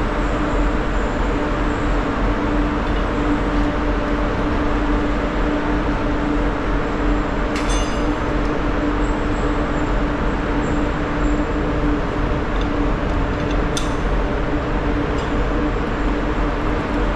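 Steady low drone of a ferry's machinery on its enclosed vehicle deck, with a constant hum over a deep rumble. Two brief metallic clicks, about eight and fourteen seconds in.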